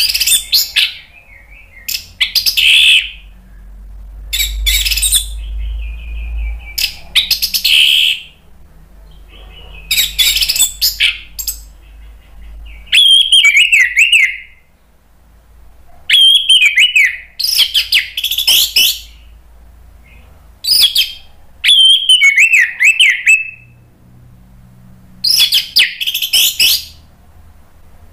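Orange-headed thrush (anis merah) singing loudly in repeated bursts of quick, varied phrases a second or two apart, some ending in a falling warble.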